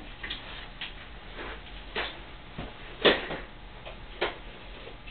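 Targus 58" tripod being handled and adjusted: scattered, irregular clicks and knocks, the loudest about three seconds in.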